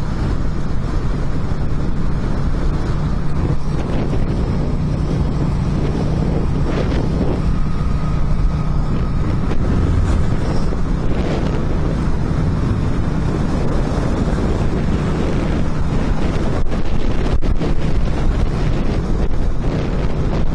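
Yamaha Drag Star 650's V-twin engine running steadily at highway cruising speed, with wind buffeting the microphone. The bike has a newly replaced pulse coil (ignition pickup coil).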